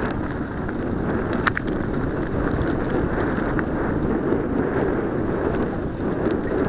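Mountain bike rolling fast down a dirt trail: tyres on dirt and the bike rattling, with wind buffeting the camera microphone and a sharp click about one and a half seconds in.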